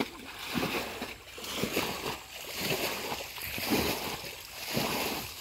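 Shallow muddy canal water splashing and sloshing in irregular bursts as people wade and work their hands through it.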